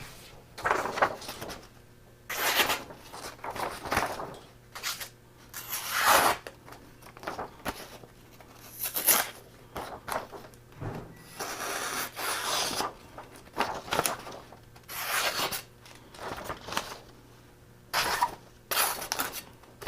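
Steel knife blade being drawn across a wet Japanese natural whetstone, a run of irregular scraping strokes about one a second, with a longer unbroken stretch of rubbing around the middle.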